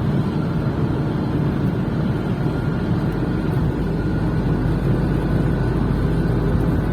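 Coach bus engine running steadily at speed: a loud, even low rumble with a faint steady high whine over it.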